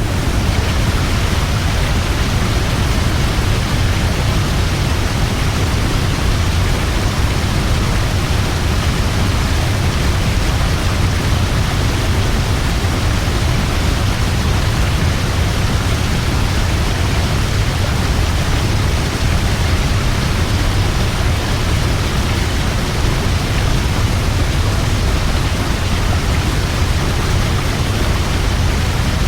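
Large waterfall: a steady, loud rush of falling water with a deep low rumble underneath.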